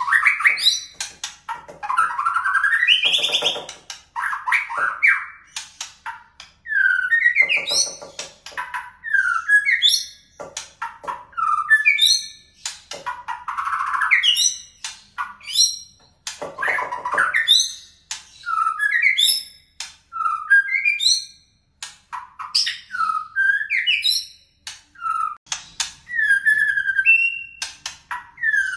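White-rumped shama (murai batu) singing a continuous, varied song: rapid whistled notes that slide up and down, broken by a few harsh, buzzy phrases. It is a murai tutor song with canary-style phrases worked in.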